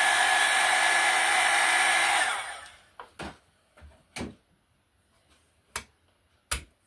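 Miniature electric pottery wheel's motor running with a steady whine, then switched off about two seconds in and winding down quickly. About half a dozen short knocks and taps follow as hands handle the wheel.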